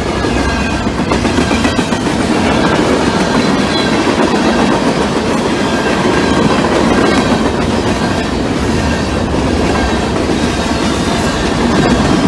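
Norfolk Southern mixed freight train's cars rolling past: a steady rumble of steel wheels on rail with clickety-clack over the rail joints and a faint high wheel squeal.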